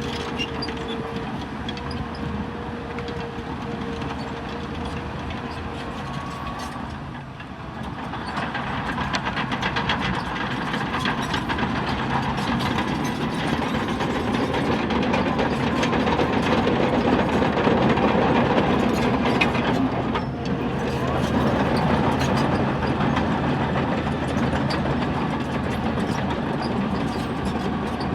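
Bulldozer's diesel engine running with the steady clank of its steel tracks. It dips briefly about seven seconds in, then grows louder and rattlier, as under load.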